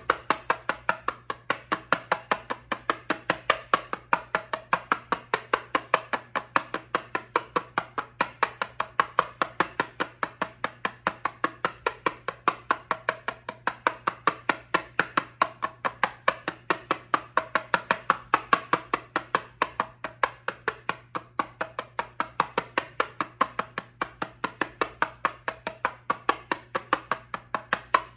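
Steady tapping on an eyeshadow palette, about three sharp taps a second in an even rhythm.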